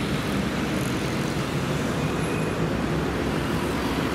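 Steady city road traffic: cars and motorbikes running along a multi-lane street.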